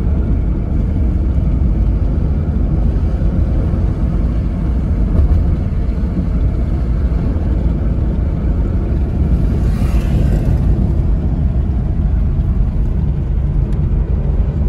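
Steady road and engine rumble heard inside the cabin of a car moving at speed, with a brief hiss about ten seconds in.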